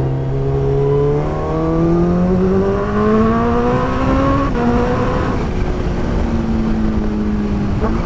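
Kawasaki Ninja H2's supercharged inline-four running through a Vandemon Performance aftermarket exhaust under acceleration, the engine note climbing steadily. About halfway through, the note breaks and drops lower, then holds fairly steady, with wind noise underneath.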